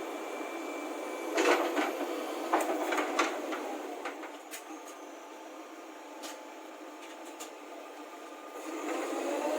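Heavy machinery engine running steadily while metal parts knock and clank: a cluster of loud knocks about a second and a half to three seconds in, then a few lighter clicks. Near the end the engine revs up.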